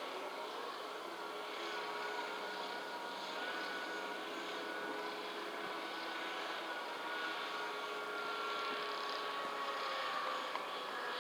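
Crane vessel machinery running steadily, a constant mechanical drone with faint thin whining tones over it.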